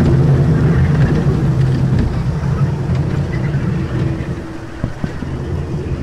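Kiddie train running along its narrow track, heard from aboard: a steady low drive hum with the wheels' rumble, easing a little about four seconds in, with a couple of light clicks near the end.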